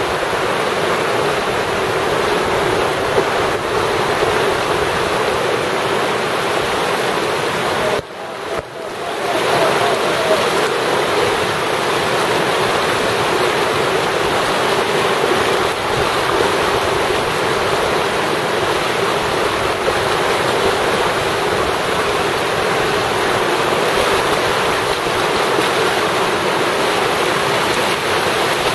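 Whitewater rapids and water pouring over a weir, a loud, steady rushing. The sound drops out briefly about eight seconds in, then comes straight back.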